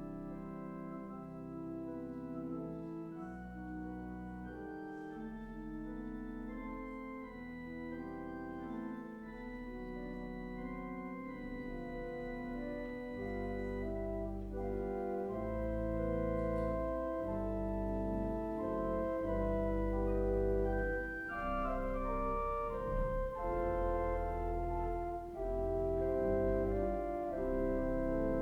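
Organ playing a slow piece in held chords, the chords changing every second or so and growing louder through the second half.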